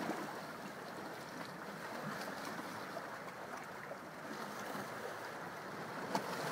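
Steady, low wash of sea surf against a rocky shore, with a faint click near the end.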